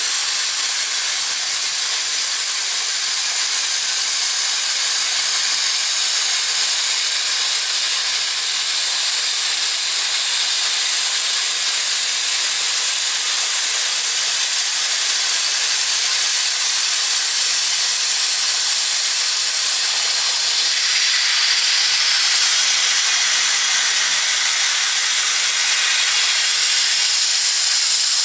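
Plasma cutting torch on a CNC table cutting metal, giving a loud, steady hiss of arc and compressed air.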